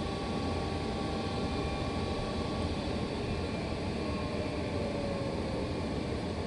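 Steady low hum and whoosh of HVAC equipment running, with a faint tone gliding downward about four seconds in.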